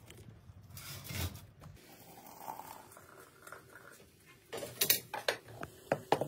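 A soft cloth rustle about a second in, then sharp clinks and knocks of tea things being handled: a glass teapot with its lid and a kettle on a counter, a quick cluster about four and a half seconds in followed by a few single clinks.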